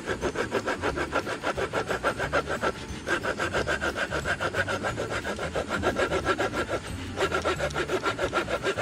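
A folding hand saw cutting through the wooden handle of a Snow Peak Tramezzino hot sandwich maker in quick back-and-forth strokes, about five a second. The sawing breaks off briefly twice, about three and seven seconds in.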